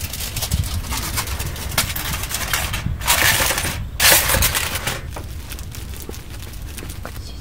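Aluminium foil crinkling and crackling as it is pressed and crimped over a griddle, with two loud bursts of crumpling about three and four seconds in, then quieter.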